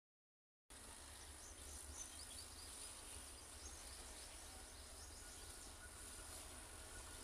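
Near silence: faint rural ambience with a steady high insect buzz, a few faint bird chirps and a low rumble. Dead silence for the first moment from an edit cut.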